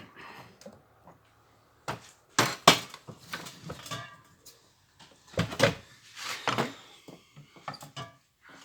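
Hard objects being handled: a series of knocks and clicks, some with a short ring after them. The loudest come about two and a half seconds in and again around five and a half to six and a half seconds in.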